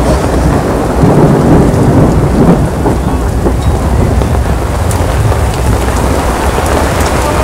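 Heavy downpour: rain pouring down hard, with a steady deep rumble underneath.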